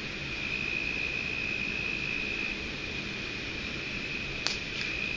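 Steady rush of water from a small river outlet near a dam, with a continuous high-pitched whine over it and a faint click about four and a half seconds in.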